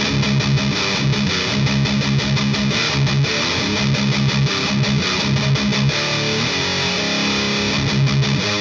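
High-gain electric guitar through a Rivera Knucklehead Reverb KR100 amp on its boosted gain channel, pushed by an Abominable Electronics Hellmouth pedal, playing a riff of short, repeated low notes.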